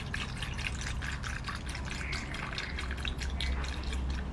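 Milk pouring from a plastic milk pouch into a bowl made of ice, splashing onto the ice balls inside it, heard as a dense patter of small drips and crackles.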